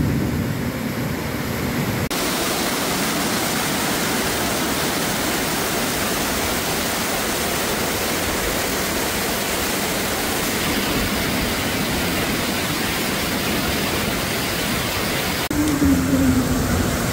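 Torrential rain and rushing floodwater, a loud, even hiss of water noise. It changes abruptly about two seconds in and again near the end, where a low steady hum joins it.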